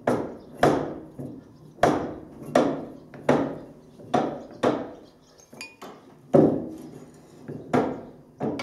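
Hammer blows on the steel drive parts of a combine header, about a dozen sharp metallic strikes roughly one every two-thirds of a second, each ringing briefly.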